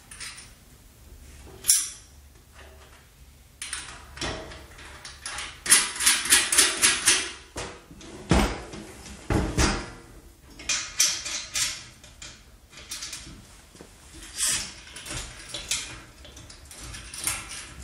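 Metal wheelbarrow parts knocking and clinking as the handles and brace brackets are fitted and bolted to the upturned tray, with a quick run of clicks in the middle and a heavier thud just after.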